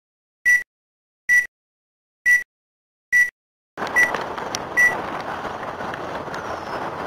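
Film-leader countdown beeps: six short, identical single-pitch beeps about once a second. About four seconds in, steady outdoor roadside noise with wind on the microphone comes in under the last two beeps.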